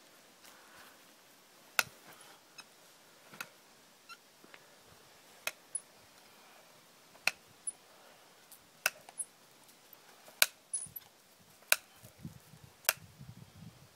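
Hoof nippers cutting through a horse's hoof wall during a trim: a series of sharp snaps, about one every second, each a single crisp cut.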